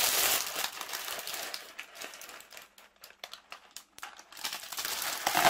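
Baking paper crinkling as it is lifted out of a pastry case, with baking beans clicking and rattling against each other, then a louder rush as they are tipped into a plastic tub near the end.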